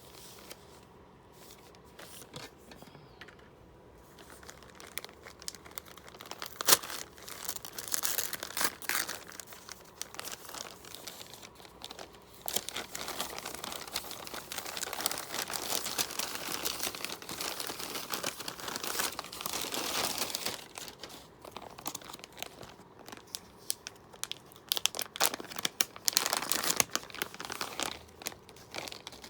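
Packaging being crinkled and torn open by hand, in irregular bursts of rustling with one sharp click about seven seconds in; the handling is busiest in the middle and again near the end.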